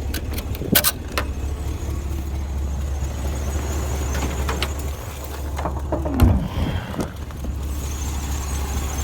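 IH 1600 truck engine idling with a steady low hum. Metal clicks near the start, then clanks and a falling creak about six seconds in as part of the truck is flipped open.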